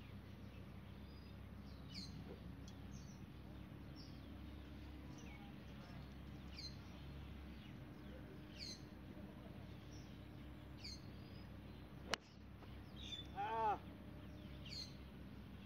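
A bird repeats a short, high, falling call about every two seconds. About twelve seconds in comes a single sharp crack, a golf club striking the ball off the tee, followed a second later by a brief, louder pitched call.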